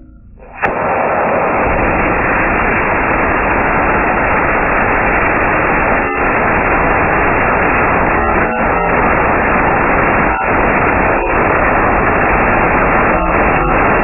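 Small test-stand rocket engine firing: a sudden start about half a second in, then a loud, steady rushing noise of the exhaust, with a few brief dips.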